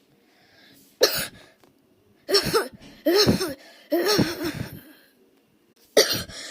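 A girl coughing in a fit: four sharp coughs close together from about a second in, a pause, then one more near the end.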